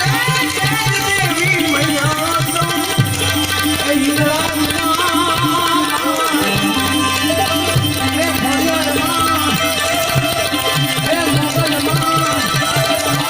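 Indian devotional folk music: tabla-style drumming keeps a steady beat under a wavering, ornamented melodic line.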